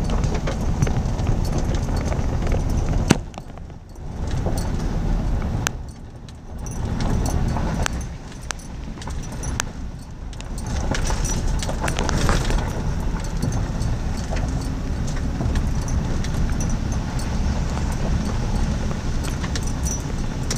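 Vehicle driving slowly up a gravel road, heard from inside the cab: a steady low rumble of engine and tyres, with gravel crunching and popping under the tyres and small rattles in the cabin. The rumble dips briefly twice a few seconds in.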